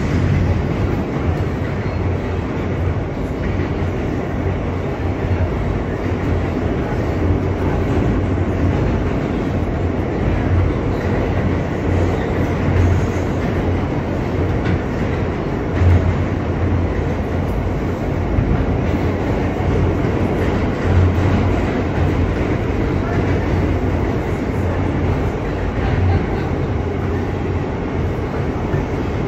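New York City Subway R160B car with Alstom propulsion running at speed through a tunnel: a steady rumble of wheels on rail under a low motor hum, with a few brief louder swells in the middle.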